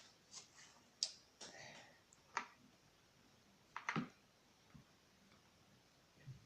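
Faint, scattered small clicks and knocks of hands handling things at close range, about half a dozen spread irregularly over several seconds.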